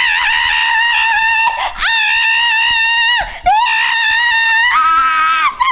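A girl screaming with excitement at being asked on a date: several long, high-pitched screams with short breaks between them, the last one pitched a little higher.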